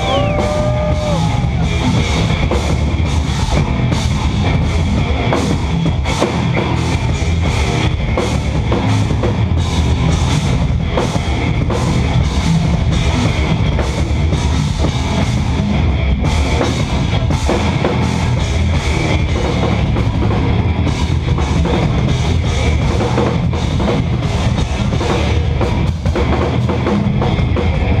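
Live instrumental progressive metal: eight-string electric guitars over a busy Tama drum kit, played loud and dense without a break.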